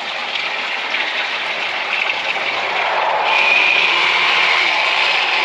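Water from a garden hose pours into a full bucket and spills over it. About three seconds in, a corded electric fillet knife is switched on and runs with a steady high hum.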